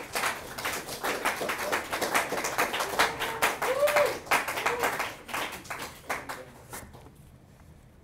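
Small audience applauding. The clapping is heaviest in the middle and dies away about seven seconds in.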